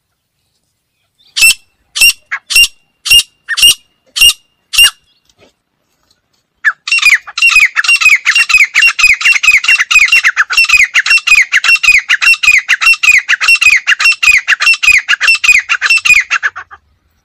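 Female grey francolin calling: about seven sharp, evenly spaced notes, then after a short pause a fast run of quick, downward-slurred notes, about four a second, that lasts nearly ten seconds.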